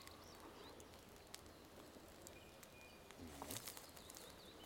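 Near silence: faint outdoor quiet with scattered short bird chirps, a few soft clicks, and a slightly louder stir about three and a half seconds in.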